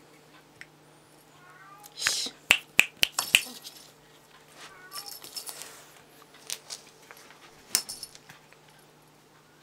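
Cat batting at and biting a feather wand toy: sharp metallic clinks and rattles of the toy, with rustling of feathers and cloth. The clinks come in a quick cluster of about five a couple of seconds in, then scattered ones.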